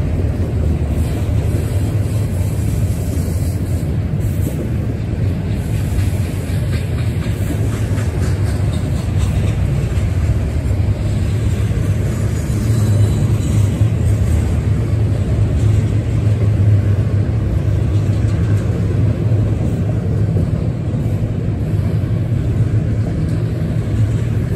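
Double-stack intermodal freight train's loaded well cars rolling past: a steady low rumble of steel wheels on the rails.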